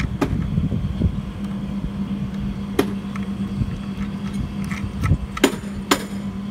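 A 1 HP refrigerant vacuum pump running with a steady low hum as it evacuates the air-conditioner's refrigerant lines after a re-made flare joint. A few sharp metallic clicks come about halfway through and twice near the end.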